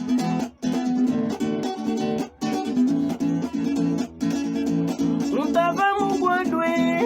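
Guitar music between sung verses: a busy, repeating plucked accompaniment, joined about five and a half seconds in by a sliding melodic line.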